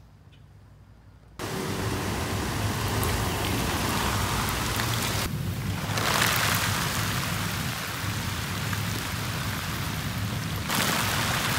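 Steady rain falling on garden plants and straw mulch, a loud even hiss that starts abruptly about a second and a half in.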